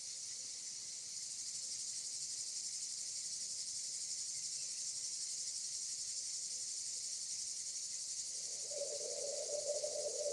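Steady high-pitched chirring of insects, with a low steady hum joining in about eight seconds in.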